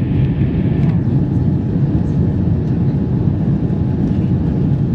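Steady low rumble of an Airbus A350-900's Rolls-Royce Trent XWB engines and the airflow, heard inside the passenger cabin while the jet climbs out after takeoff.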